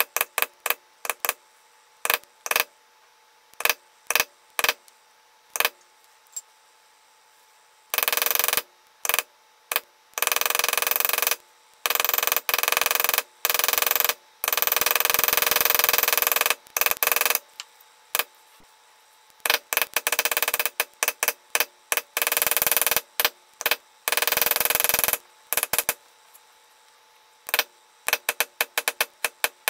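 Mallet striking a metal stamping tool held on damp tooling leather: single sharp taps a second or two apart, then long runs of rapid light taps, then single taps again near the end.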